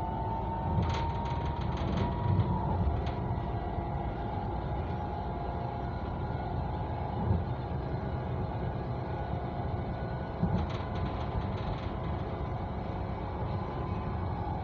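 Copenhagen Metro train running on surface track, heard from inside the car: a steady rumble with a motor whine that rises slightly in pitch over the first two seconds. Quick runs of clicks from the wheels on the track come about a second in and again around ten seconds in.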